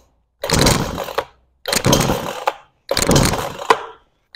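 Titan TTL759CHN two-stroke chainsaw's recoil starter cord pulled three times, each pull a rasping whirr of about a second with short silences between. The cold engine does not catch.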